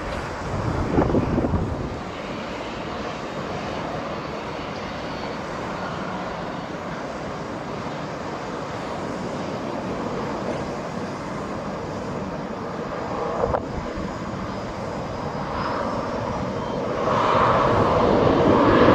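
Jet engines of a Qantas Boeing 737-800 (CFM56 turbofans) running as it taxis, a steady rush that grows louder over the last couple of seconds. Wind buffets the microphone in the first two seconds.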